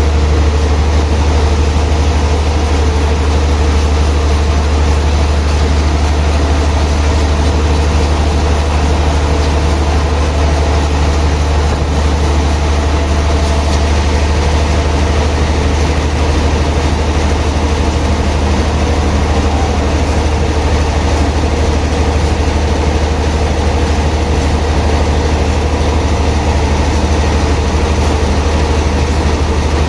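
Sawmill machinery running with a steady, loud low hum that does not change.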